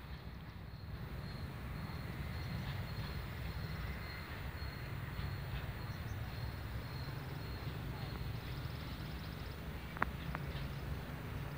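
Faint low rumble of a container freight train rolling away into the distance, with an insect chirping steadily in a high repeating pattern. Two short clicks come near the end.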